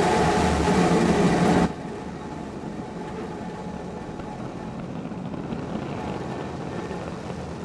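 Rocket engine roar from a Starship prototype's Raptor engines in flight, loud and dense, cutting off abruptly about a second and a half in to a quieter, steady rumble.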